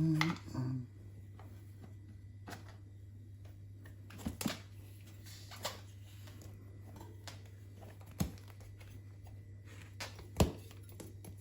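A few scattered knocks and clicks from handling a bicycle tyre and wheel as a new tyre is worked onto the rim by hand, over a steady low hum.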